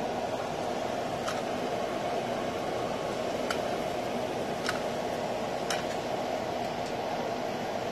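Murukku dough frying in hot oil: a steady sizzle with a few sharp pops scattered through it.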